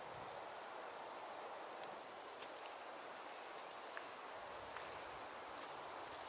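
Forest ambience: a steady outdoor hiss, with a rapid run of high, evenly spaced chirps from about two seconds in, broken once for a moment, and a couple of faint clicks.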